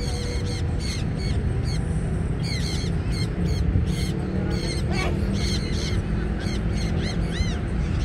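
Birds calling in many short, quick chirps, with a few higher arching calls near the end, over a steady low background rumble.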